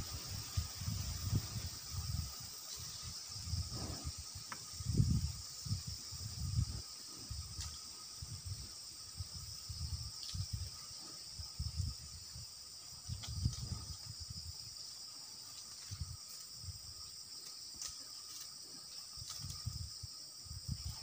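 A steady high-pitched insect chorus runs throughout. Irregular low, muffled rumbles come and go through it.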